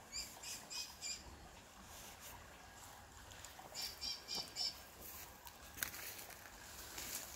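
A bird calling in two runs of short, quickly repeated notes, one right at the start and another about four seconds in.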